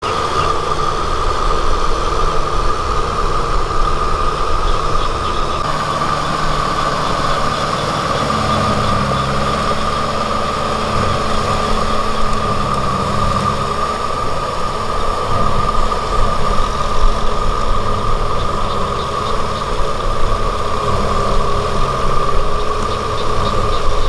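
Kubota M6040SU tractor's four-cylinder diesel engine running steadily under load while driving a rear rotavator (rotary tiller) through wet paddy mud, with a steady high whine over the engine drone.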